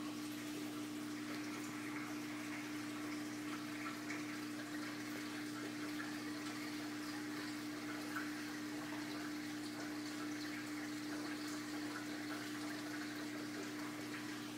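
Saltwater reef aquarium running: a steady rush of circulating water from the tank's filtration, with the constant hum of its pump underneath.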